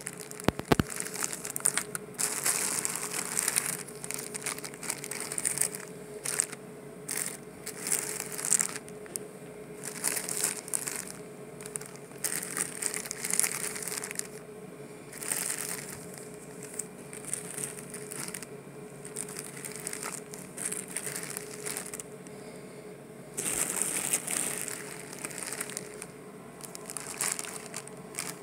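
Clear plastic zip-lock bags crinkling and rustling in irregular bursts as they are handled and shifted in a pile, over a faint steady hum.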